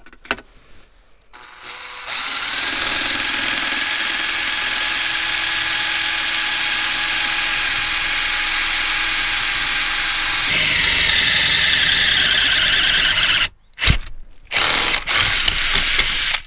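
Cordless drill boring a hole through the side of a van seat for an armrest bolt: a steady high whine for about eight seconds, then the pitch sags for a few seconds before it stops. A sharp knock follows, then a few short bursts of the drill.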